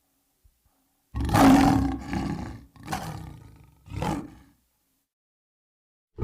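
Lion roaring: one long, loud roar about a second in, followed by two shorter, fainter grunting calls.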